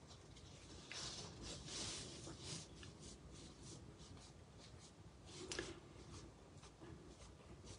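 Faint rustling and rubbing of hands working twine and an evergreen sprig against kraft wrapping paper, with one small click about five and a half seconds in.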